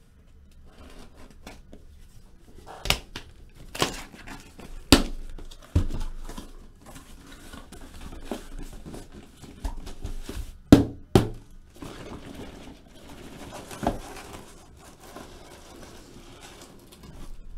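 Cardboard shipping case being opened and unpacked by hand: flaps and packing rustling and tearing, broken by a series of sharp knocks and thuds as the shrink-wrapped card boxes are lifted out and stacked, the loudest about five and eleven seconds in.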